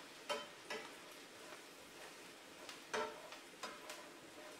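A utensil scraping and clicking against a skillet while stuffing of bread cubes and sautéed onions and celery is stirred, a few sharp irregular clicks over a faint steady sizzle.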